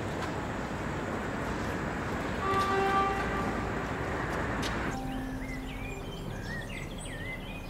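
Steady outdoor town noise with a brief pitched toot about two and a half seconds in. About five seconds in it cuts abruptly to a quieter background of birds chirping, with a few low sustained notes.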